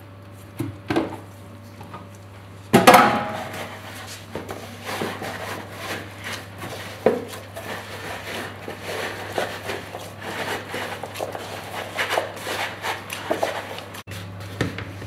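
Gloved hands kneading crumbly, butter-rich cheese dough in a ceramic bowl: irregular rubbing, squeezing and scraping against the bowl, with small knocks of the bowl on the counter and one sharp knock about three seconds in.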